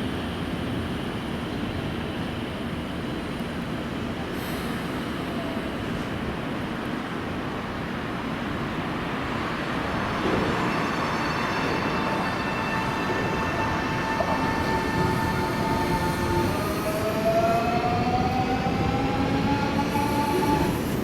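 Nankai 8300 series electric train pulling out, with a low rumble and then, about halfway through, a tonal electric-motor whine that holds steady and then rises in pitch as the train picks up speed.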